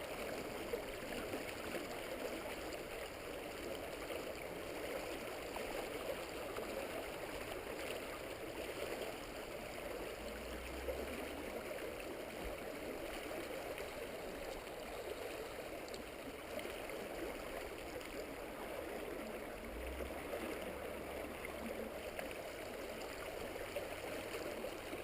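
A stream running, a steady, continuous babble of flowing water.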